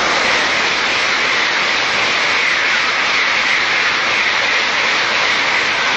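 Shinkansen bullet train running through a station at speed without stopping: a loud, steady rushing noise with no tones in it.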